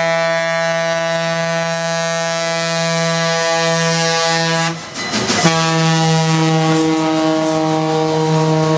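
Passing locomotive sounding a loud, sustained multi-note chime, a steady chord that breaks off briefly about five seconds in and then sounds again.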